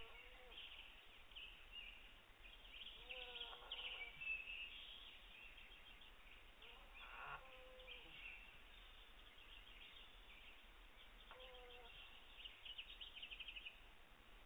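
California condor chick snoring faintly in its sleep: three short snores, about four seconds apart. Small birds chirp in the background.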